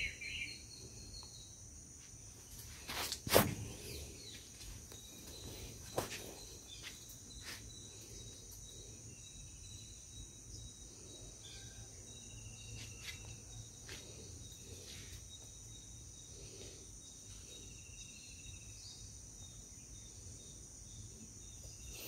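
Faint rural ambience: insects chirping steadily at a high pitch, with a few short faint bird chirps and sharp knocks about three and six seconds in, the first the loudest.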